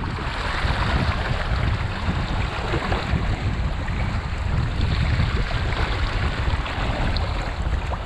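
Strong wind buffeting the microphone, with water rushing and splashing along the hull of a sailing canoe running before breaking waves. The noise goes on without a break, the low rumble rising and falling with the gusts.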